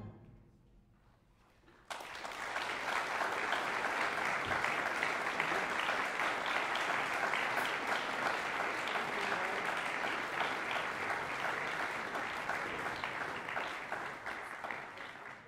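Audience applauding, starting abruptly about two seconds in after a brief silence and thinning out slightly toward the end.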